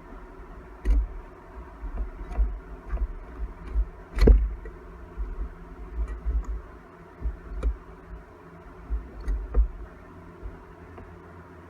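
Tools and metal engine parts of a Honda CT70 clinking and knocking as the engine is taken apart by hand, with one louder knock about four seconds in, over a steady low hum.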